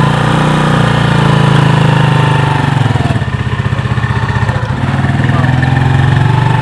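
Small single-cylinder motorcycle engine of a tricycle (motorcycle with sidecar) running at low speed as it is driven past. It fades a little as it moves away and grows louder again near the end as it comes back around.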